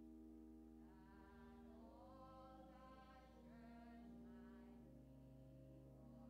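Faint hymn singing during communion, a melody moving over steady held accompaniment notes.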